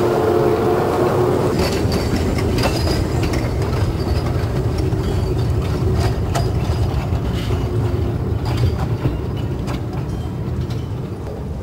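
A 600 mm narrow-gauge electric mine locomotive's train of loaded coal tubs rolls past: a steady low rumble with the steel wheels clicking and clattering over the rail joints and a few brief high squeaks. It eases off a little near the end as the train moves away.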